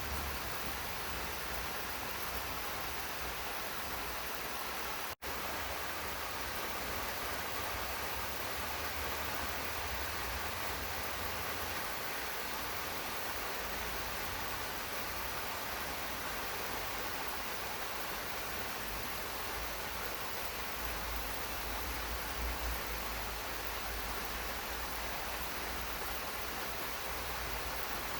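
Steady rain falling in a garden, an even hiss with a low rumble underneath. It cuts out for a split second about five seconds in.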